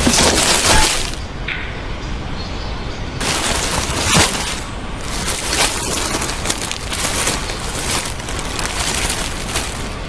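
Dense crackling and rustling of dry leaves and earth on a forest floor, loudest in the first second, with a sharp crack about four seconds in.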